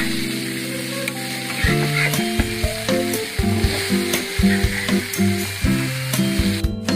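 Marinated fish pieces shallow-frying in oil on a flat pan (tawa), sizzling steadily, with scattered clicks and scrapes from a steel spatula turning the pieces.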